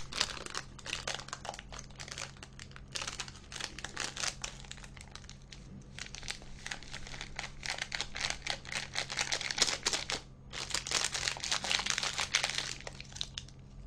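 Instant-noodle sauce packets crinkling as they are handled, torn open and squeezed out into the noodle cup: a string of crackles and rustles, with a short pause about ten seconds in.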